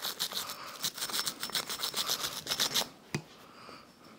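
A small brush scrubbing carbon fouling off an AR-15 bolt carrier group in rapid back-and-forth strokes that stop near three seconds in, followed by a single short knock.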